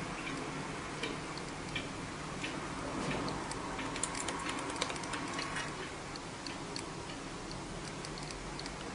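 Budgerigar's beak clicking and tapping: light, irregular clicks, with a quick run of them about four to five and a half seconds in, over a steady low hum.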